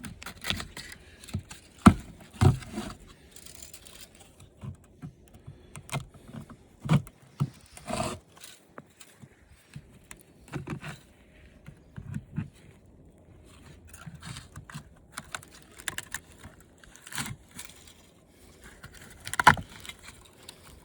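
Hand tools and loose metal and plastic parts clicking, knocking and scraping irregularly while a tight part is worked loose in the dismantling of an old TV. A sharp knock about two seconds in and a cluster of louder knocks near the end stand out.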